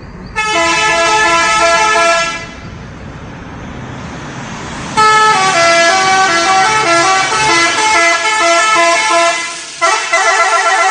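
Indonesian bus telolet horn, a multi-tone musical air horn: a held chord for about two seconds, then after a short gap a stepping melody for about five seconds, then a fast warbling chord near the end.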